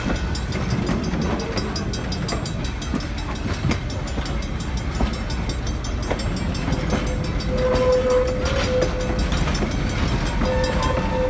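Vintage passenger coaches rolling past on the track, wheels rumbling and clacking over the rail joints. From about two-thirds of the way in, a steady high tone comes in and out over the rumble.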